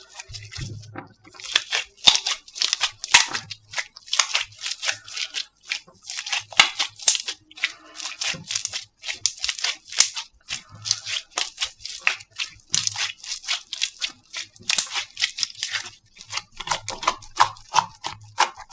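Slime being squeezed and pressed by hand, a dense irregular run of wet clicks and crackling pops, with some lower pops near the end.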